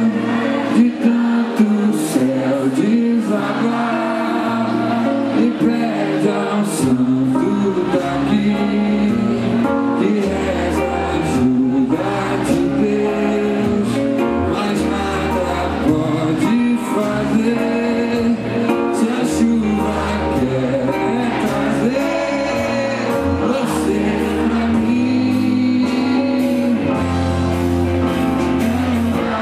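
Live rock band playing, with electric guitar and drums; a bass line comes in about seven seconds in.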